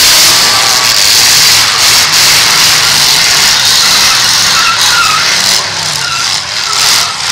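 Demolition derby cars' engines revving under load with wheels spinning, a loud, steady, rough noise with a wavering engine note beneath it.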